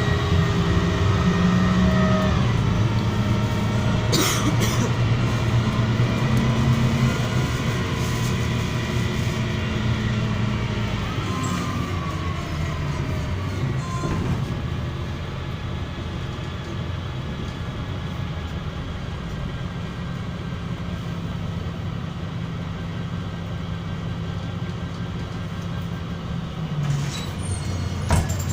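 MAZ-103 city bus under way, heard from inside: the engine note shifts in pitch through the first half, then settles into a lower, quieter steady drone from about halfway. A single knock about four seconds in, and a few clicks near the end.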